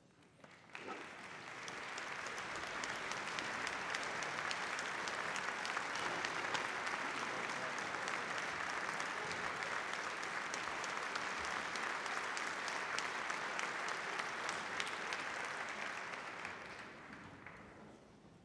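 Concert-hall audience applauding, greeting the conductor before the piece begins. The clapping starts about a second in, builds and holds steady, then dies away near the end.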